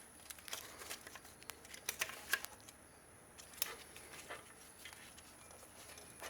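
Faint, irregular small metal clicks and light scraping as a hook tool works a wire connector off a starter solenoid, with a few sharper clicks in the middle.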